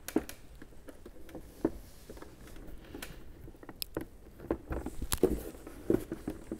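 Scattered light clicks, taps and soft knocks of a Harley-Davidson's plastic outer fairing being worked up and around the headlights to free it, with a few duller bumps near the end.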